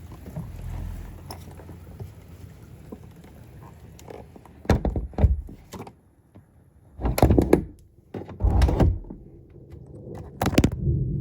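A low rumble, then a handful of sharp knocks and thumps spread over the second half.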